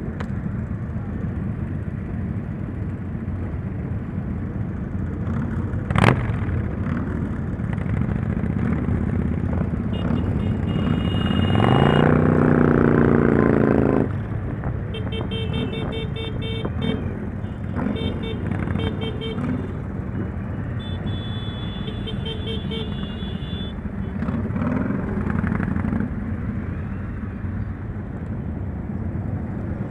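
Motorcycles running on a mass group ride, a steady engine and road noise throughout. An engine revs up, rising in pitch, a little before the middle, and horns toot in quick repeated beeps for several seconds after it.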